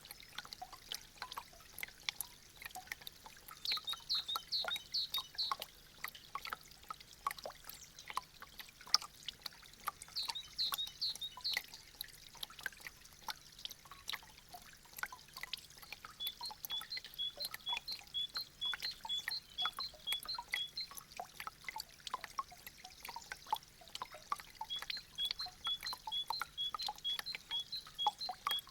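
Meltwater from melting icicles dripping and trickling: many irregular drips and splashes. Runs of a high, evenly repeated chirping come and go over it.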